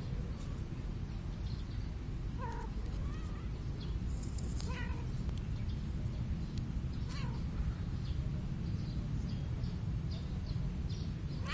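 Cat meowing in short calls, about five spread through, from stray cats mating, over a steady low rumble.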